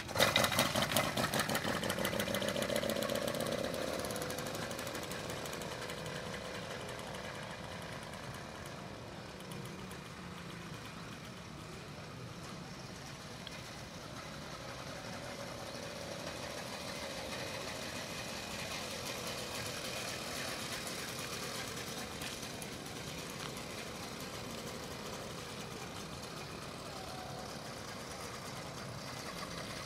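Small single-cylinder engine of a motorized bicycle (gasbike) running with rapid firing as the bike pulls away, loudest at the start. It fades as the bike rides off, then grows louder again as it comes back around.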